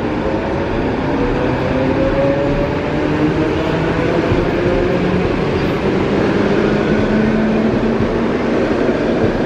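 ED4M electric multiple unit pulling away and gathering speed: the whine of its traction motors rises slowly in pitch over a steady rumble of the train on the track, then levels off in the second half.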